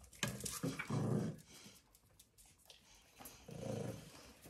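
Dog growling in two bouts, a longer one near the start and a shorter one about three and a half seconds in.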